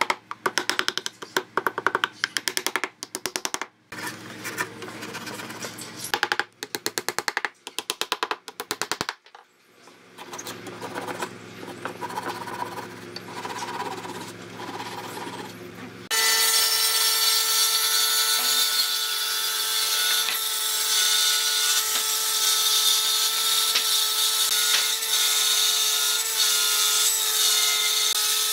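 A wooden mallet knocking wooden dowels into a wooden tabletop in quick runs of strikes, then a hand saw cutting off the protruding dowels in a few slow strokes. About 16 seconds in, a woodworking jointer-planer is suddenly heard running at a steady whine as a board is fed over it.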